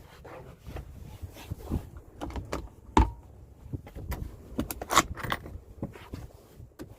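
Irregular light clicks, taps and rubbing from cleaning tools being worked over hard interior surfaces, with two sharper knocks about three and five seconds in.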